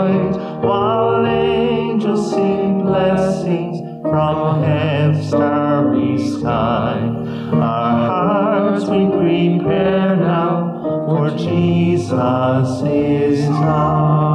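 A slow hymn-like song: one voice singing long held notes with vibrato over sustained keyboard accompaniment.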